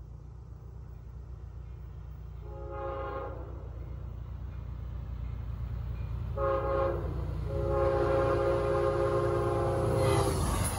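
Amtrak GE P32AC-DM locomotive sounding its horn for the grade crossing as the train approaches. There is a blast about two and a half seconds in, a short blast at about six and a half, then a long blast of nearly three seconds, over a low rumble that grows louder. Near the end the locomotive passes close with a loud rush of noise.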